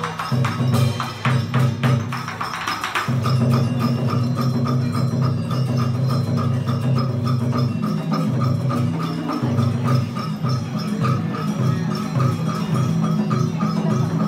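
A traditional Vietnamese water puppet ensemble playing, with a quick, steady percussion beat of clicks over low sustained tones.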